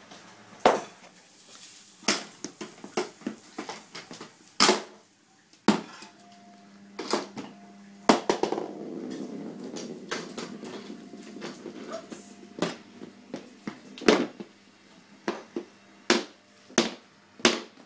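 A golf putter knocking and tapping irregularly on a wooden floor and against wooden furniture, some knocks sharp and loud. A low steady hum runs through the middle stretch.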